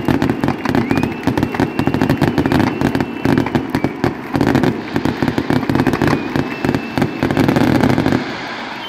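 Aerial fireworks display: a rapid, continuous barrage of bangs and crackling over a low rumble, dying down near the end.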